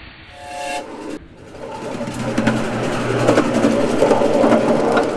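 A short steam whistle from a miniature live-steam locomotive, then the ride-on miniature train running along its track, its wheels clicking and rumbling over the rails and growing louder over a few seconds.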